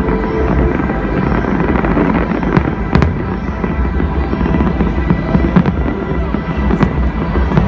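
Fireworks going off over loud electronic dance music, with several sharp bangs standing out, the strongest about three seconds in.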